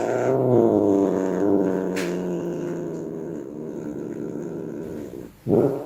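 Tuxedo cat growling in one long, rough, continuous growl that slowly fades, broken near the end by a short, louder cry.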